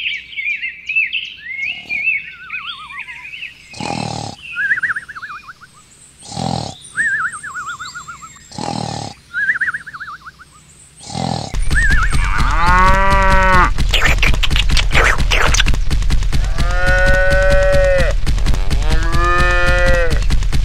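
Cattle mooing, three long calls, over a loud steady buzzing rattle that starts about halfway through. Before that, high bird-like chirps and four short thuds.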